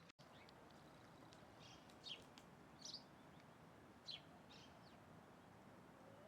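Faint bird calls: about half a dozen short, high chirps scattered through the middle seconds, over a steady background hiss.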